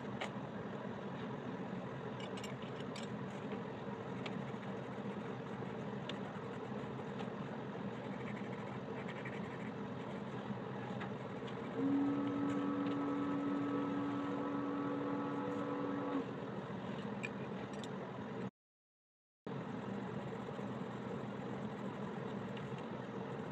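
Coloured pencil shading on paper over a steady background hum. A steady pitched tone sounds for about four seconds past the middle, and the sound cuts out completely for about a second near the end.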